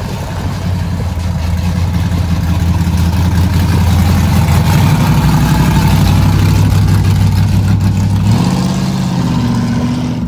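Lowered Chevy pickup's 6.0-litre LS V8 held at high revs while the truck spins donuts, a steady loud exhaust drone whose pitch steps up about eight seconds in.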